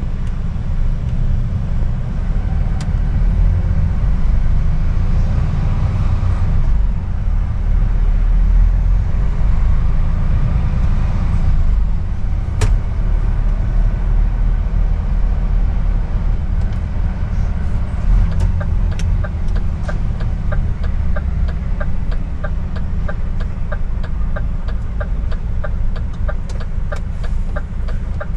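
Truck tractor unit's diesel engine heard from inside the cab, running with a steady low rumble as it drives. There is a single sharp click about halfway through. In the last third an even ticking starts at about two a second, typical of the turn indicator.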